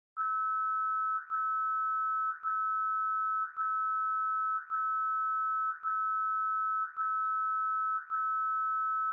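Electronic alarm beeping: a steady two-note electronic tone sounding in beeps of about a second each, with short breaks between them, eight in a row.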